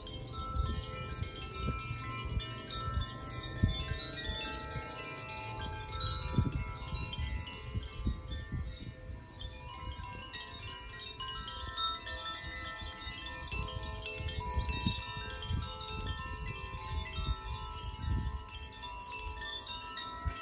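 Hand-played tuned wind chimes tinkling: many bright notes struck one after another, overlapping and ringing on as they fade, over a low uneven rumble.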